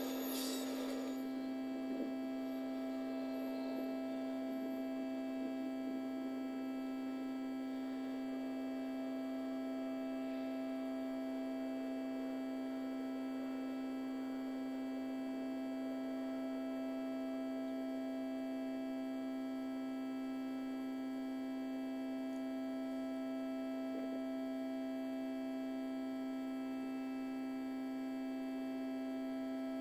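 Steady electrical hum: a constant low tone with a higher one over it, unchanging throughout. A short rush of noise fades out in the first second.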